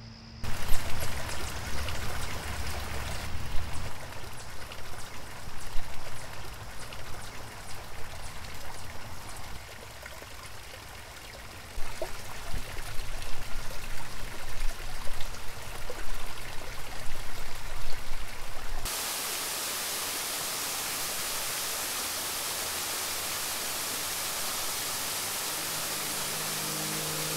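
Running water splashing over rocks, uneven and fluctuating, which changes about 19 seconds in to the steady, even rush of a waterfall pouring into a pool.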